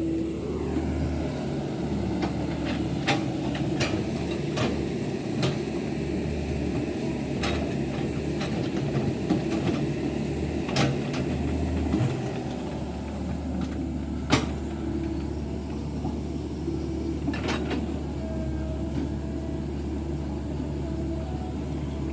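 Excavator's diesel engine running steadily, with sharp knocks and clanks every second or two. The engine note eases a little about twelve seconds in, and the loudest knock comes a couple of seconds after that.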